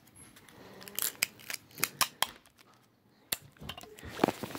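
A quick run of sharp clicks and snips from hand work on a homemade phone built in a thin metal tin, then a short pause and a few more clicks.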